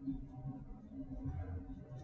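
Marker writing on lightboard glass, faint, over a steady low hum of the room.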